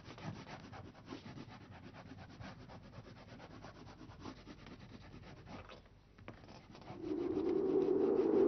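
Dense scratchy rubbing with a fine rasping texture for about six seconds. About seven seconds in, a steady low tone swells up and becomes the loudest sound.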